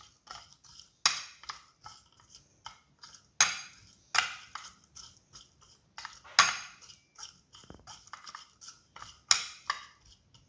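Metal spoon clinking and scraping against a bowl in irregular strokes, with a few sharper knocks, while sliced okra is stirred with salt.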